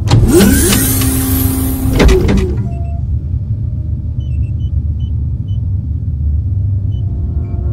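A loud whooshing rush of noise with sliding tones for about two and a half seconds, cutting off abruptly, then a steady low rumble with a few faint high chirps.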